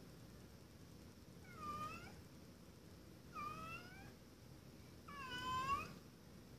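Tabby cat meowing three times, each call dipping and then rising in pitch, the last one the loudest: the cat's demand to be let in.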